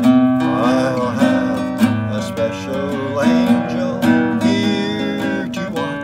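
Classical guitar being played in steady plucked chords, with a man's voice singing along softly in places.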